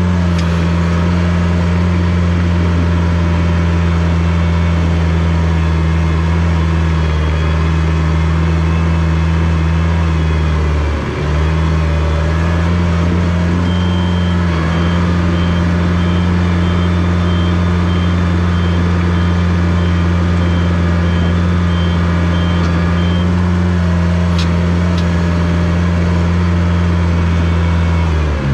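Komatsu D21 bulldozer's diesel engine running steadily, dipping briefly about eleven seconds in and again at the very end. A high, evenly repeating beep, like a reversing alarm, sounds for about nine seconds in the middle.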